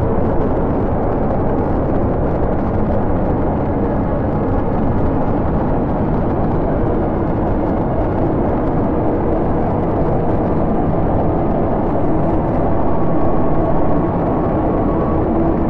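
Dark ambient noise-drone music: a steady, dense rumbling wash with a few faint held tones that shift in pitch near the end.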